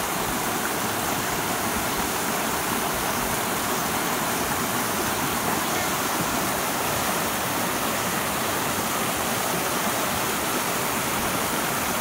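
Waterfall cascading down rock tiers: a steady, even rush of falling water.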